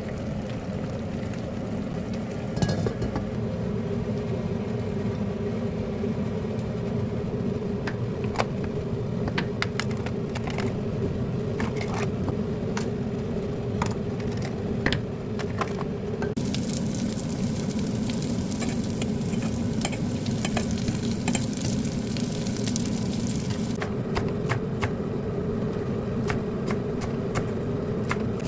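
Food frying in a pan over a steady hum, with a utensil clicking and scraping now and then. The sizzle rises to a louder hiss about halfway through, then drops back near the end.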